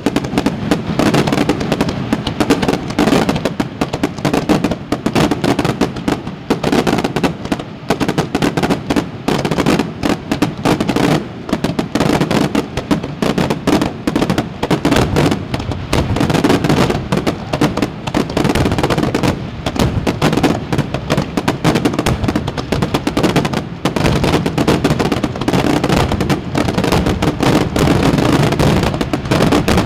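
Fireworks going off in rapid succession: a dense, unbroken run of bangs and crackles.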